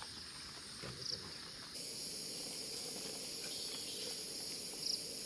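Forest insects buzzing steadily in a high, shrill chorus. A second, even higher shrill buzz joins abruptly about two seconds in and stops suddenly near the end.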